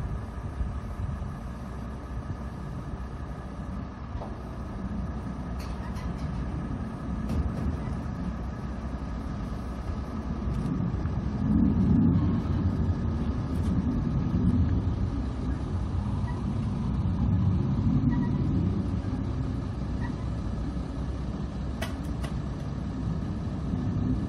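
Diesel engine of the crane lifting the wall panels, running steadily as a low rumble that swells now and then, with a few faint clicks.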